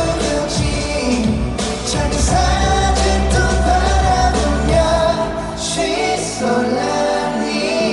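Live pop song over an arena sound system: a man singing a melodic line over the backing music, heard from within the crowd.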